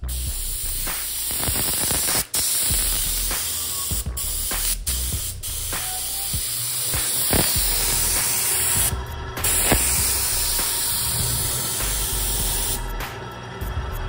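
Paint spray gun spraying in a steady hiss, with several brief breaks, the longest about nine seconds in; near the end it comes in short, quick bursts.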